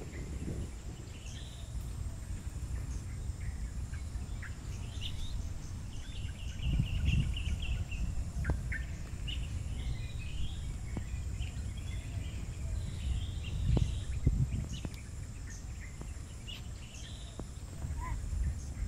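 Wild birds chirping and calling, with scattered short chirps and a brief trill about six seconds in, over a steady low outdoor rumble.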